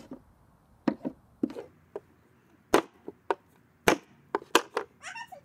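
A screwdriver stabbing repeatedly into an LG G4 lithium-ion phone battery lying on a plywood board: about nine sharp knocks at uneven intervals.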